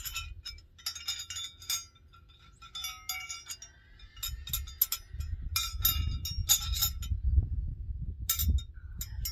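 A set of EDIX soft-tree saddle gullet plates clicking and clinking against one another as they are handled and fanned out, with many quick sharp clicks and a few brief ringing tones. A low rumble swells underneath in the second half, where the loudest clicks come.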